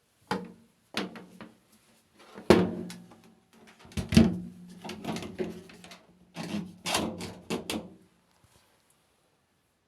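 Irregular knocking and clattering of hard parts being handled during work on a washing machine, the louder knocks followed by a short low ring. The clatter stops about 8 seconds in.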